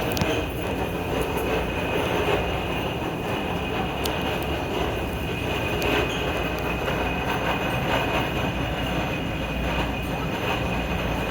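SEPTA M-4 subway car running, with a steady rumble of wheels and motors under a constant high-pitched whine, the strange sound the car is making.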